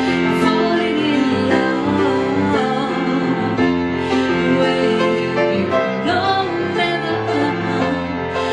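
A woman singing a song with live piano accompaniment.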